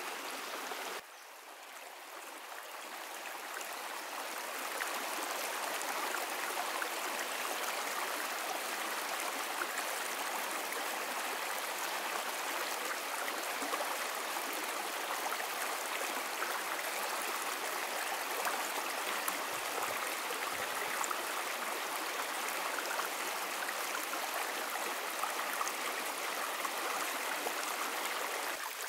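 Stream water running steadily. It drops suddenly about a second in and swells back up over the next few seconds.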